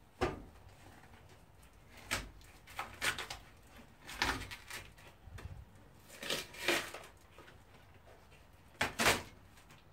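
Handling noises: about half a dozen short knocks, clicks and rustles at irregular intervals as small items are handled by hand.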